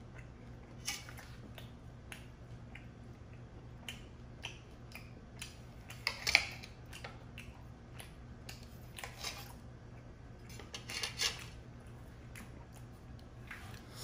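Steel knife and fork clinking and scraping against a plate while cutting cooked steak into pieces: irregular light clicks, the loudest cluster about six seconds in.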